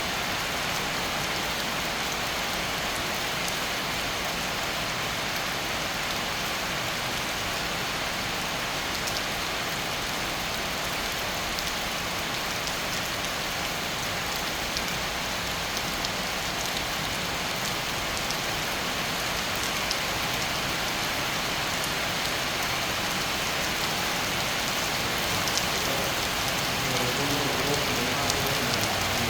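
Steady rain falling on surfaces, an even hiss of many drops that grows slightly louder in the last few seconds.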